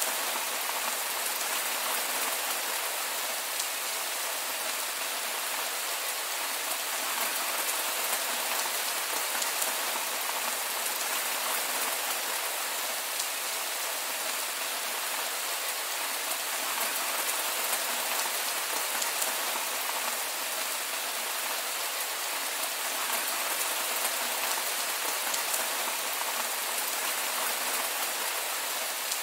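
Heavy rain falling steadily: an even, unbroken hiss with no thunder.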